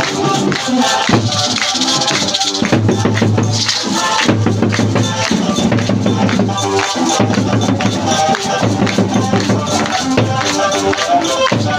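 Music with a steady, fast percussion beat and rattling shakers.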